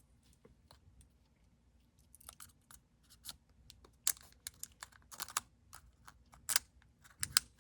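Trading cards and a sealed card pack being handled by hand: scattered light taps, clicks and crinkles, sparse for the first two seconds and then more frequent.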